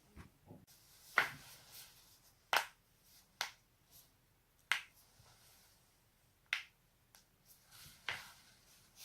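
Joints being cracked: about six sharp, separate pops, one every second or two, over a quiet background.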